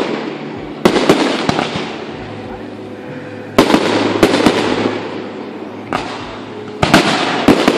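Aerial firework shells bursting overhead: sharp bangs in clusters about a second in, around four seconds in, and again from six seconds to near the end, each followed by a long fading rumble and crackle.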